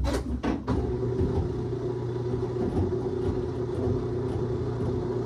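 Two clicks, then a steady machine hum with a low drone, typical of a laundry machine's motor running.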